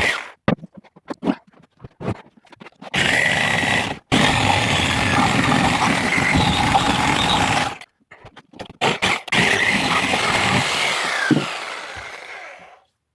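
Corded reciprocating saw with a metal-cutting blade cutting through the nails and wood of a pallet. It runs in several bursts with short trigger blips between them and a squeal of blade on metal, then winds down with a falling whine near the end.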